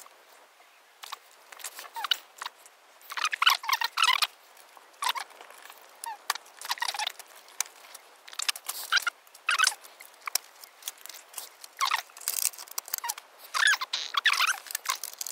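Parts of a Sony DSR-370 camcorder being handled during disassembly: scattered clicks, rattles and short squeaky scrapes of circuit boards, ribbon cables and casing, in clusters every second or two.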